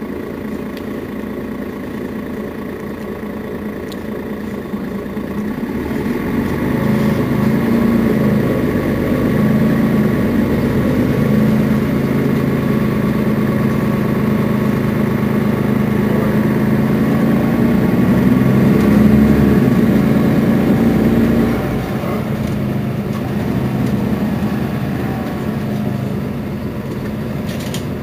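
Mercedes-Benz Citaro Facelift city bus engine idling at a standstill. Its running grows louder about six seconds in, holds there for some fifteen seconds, then drops back to the quieter idle about three-quarters of the way through.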